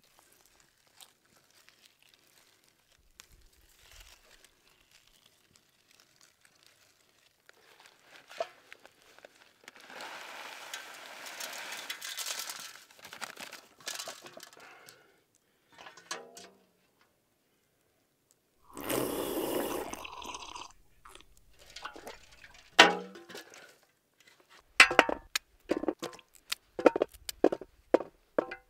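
Hands handling a turkey in an enamel roasting pan with soft rustling, then, over the last few seconds, a quick series of sharp crunchy snaps as a knife cuts raw carrots into the pan.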